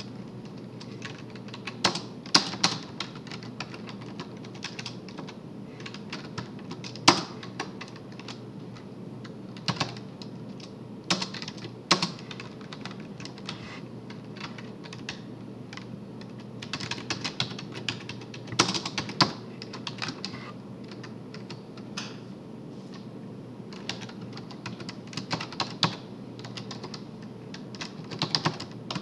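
Typing on a computer keyboard: irregular bursts of keystrokes separated by short pauses, with a few sharper single key strikes.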